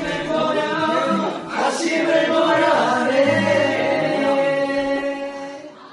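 Music: several voices singing together in held, sustained notes, fading near the end.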